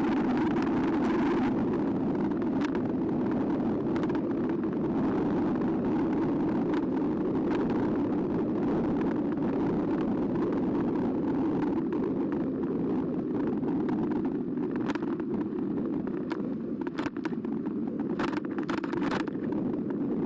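Steady ride noise of an eBike in motion, wind and tyre rumble picked up by a bike-mounted camera. A run of sharp clicks and rattles comes in over the last few seconds.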